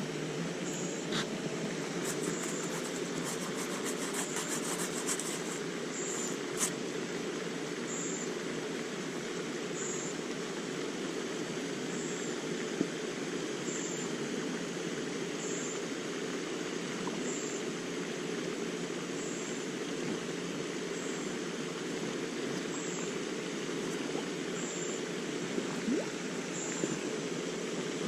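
Steady rushing background noise with a faint high-pitched chirp repeating about once a second, and a few isolated clicks.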